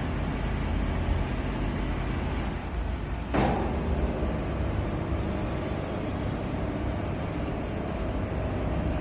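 Titan SC 14 vertical turret lathe running with its main slide drive switched on: a steady low machine hum, with one brief sharp clunk about three seconds in.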